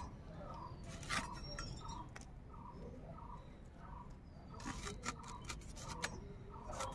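Firm raw green mango being sliced on a boti blade, in short crisp cuts: one about a second in, a couple near two seconds, and a quick run of them in the second half.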